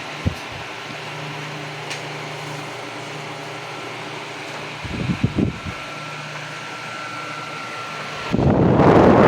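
Arno Turbo Force table fan running steadily, its airflow noise carrying a faint steady whine and a low hum. A few soft knocks come about halfway through, and near the end a much louder rushing noise swells up.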